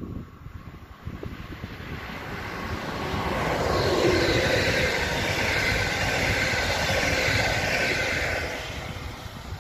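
A DB Class 146 electric locomotive hauling red double-deck coaches passes by, with wheel-on-rail running noise. It swells as the train approaches, is loudest from about four seconds in while the coaches go past, and fades away near the end.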